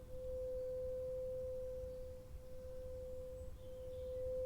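A steady, pure mid-pitched tone held throughout, with faint higher overtones and a couple of slight dips in loudness.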